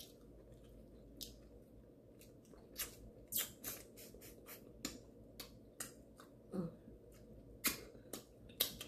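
Close-up wet eating sounds from a snow crab seafood boil: irregular sharp lip smacks and sucking clicks as fingers and crab are sucked and licked clean. A brief hummed "mm" falls in pitch about two-thirds of the way in.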